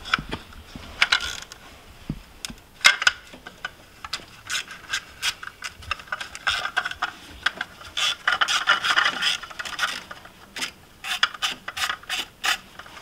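Hand tools working on tractor engine parts: irregular clicks and metal scraping, with short runs of ratchet-wrench clicking as the wiring connection and cover are worked loose.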